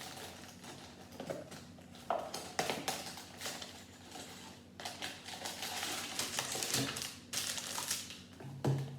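A small cardboard Lego Technic set box being opened by hand: irregular scraping, tearing and crinkling of the cardboard in several spells.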